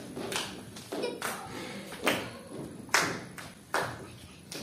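Children clapping hands in a steady beat, about one clap a second, in a large hall.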